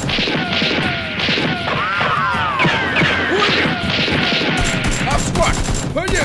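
Movie-style gunfire sound effects. A run of bullet impacts on brick comes with whining ricochets, about three to four hits a second, and rapid automatic fire starts again about four and a half seconds in.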